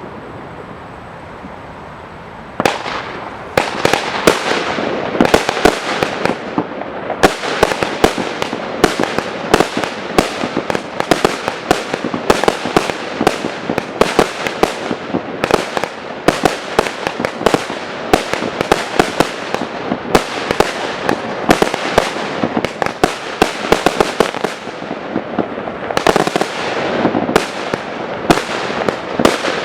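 Consumer firework batteries firing: a low crackle for the first couple of seconds, then from about three seconds in a dense, continuous barrage of rapid shots, bangs and crackle.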